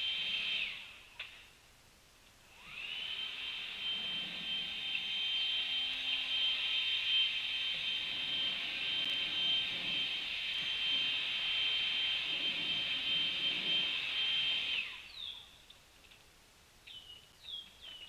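A high-pitched motor whine that winds down about a second in, spins back up with a rising whine a couple of seconds later, runs steadily, then winds down again. A few short bird chirps follow near the end.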